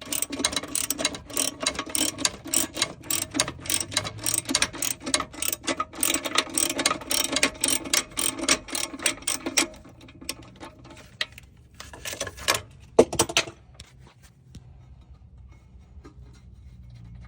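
Socket ratchet clicking in quick repeated strokes as a loosened torque converter bolt is wound out, for about ten seconds. A few louder clicks and a sharp knock follow a couple of seconds later.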